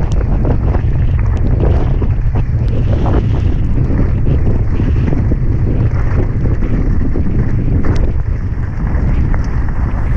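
Heavy wind rumble on the microphone of a mountain bike's action camera during a fast descent, with irregular clattering and knocks from the bike jolting over rough, muddy ground.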